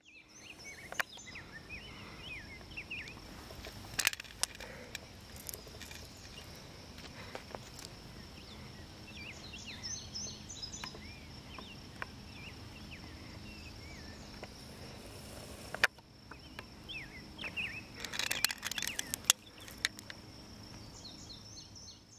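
Outdoor ambience: a steady high-pitched whine with bird chirps scattered throughout and a low, even rumble. Several sharp clicks break through, the loudest about four seconds in and just before sixteen seconds, with a cluster of them near the end.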